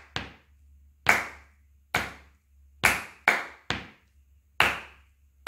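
Hand claps playing a slow rhythm in four: two quick claps, a softer hit, then two evenly spaced claps about a second apart, the pattern repeating.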